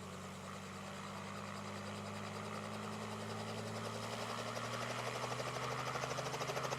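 Helicopter engine and rotor, getting steadily louder, with a fast rhythmic rotor beat that grows stronger toward the end.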